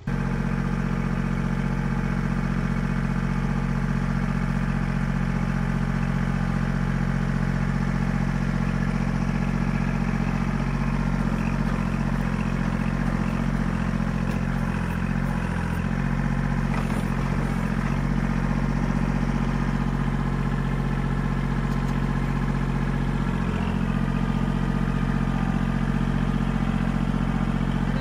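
Kubota L2501 compact tractor's three-cylinder diesel engine running steadily. Midway there are a few knocks and rattles as the front loader bucket is pushed into a snow-laden tree.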